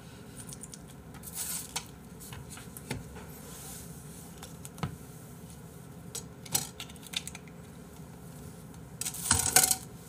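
Scattered light clinks and knocks of tableware being handled on a table, with a louder cluster of clatter about nine seconds in.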